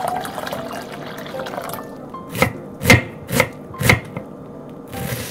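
Water poured into a glass bowl, then a kitchen knife chopping onion on a wooden cutting board: four even strokes about two a second, under background music.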